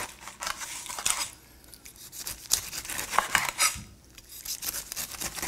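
Chef's knife slicing down through the rough rind of a whole pineapple in a series of rasping strokes, with sharp clicks as the blade meets the wooden cutting board.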